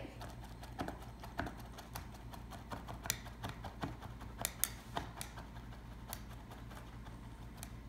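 Light, irregular clicks and taps on a plastic cutting board as chopped parsley is scraped together and picked up with a knife and fingers.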